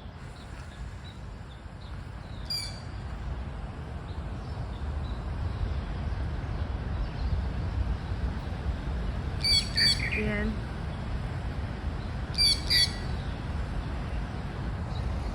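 Birds giving short, high chirps a few times, mostly in quick pairs, with one lower falling call about ten seconds in. Under them runs a steady low rumble.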